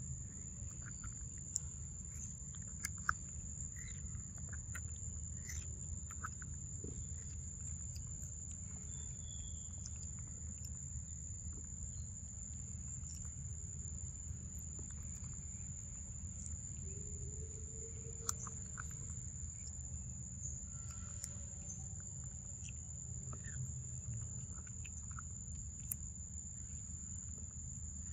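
A young macaque eating ripe mango: scattered wet chewing and lip-smacking clicks. A steady high-pitched insect drone runs underneath.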